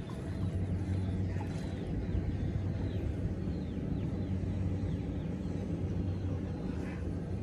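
Small inboard-style engine of a wooden longtail boat idling with a steady, low, even hum. Faint short chirps sound now and then above it.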